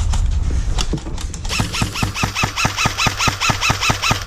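Airsoft gun firing: a few single shots, then from about a second and a half in a long full-auto burst at about seven shots a second, each shot with a short mechanical chirp, under a steady low rumble of wind and movement on the microphone.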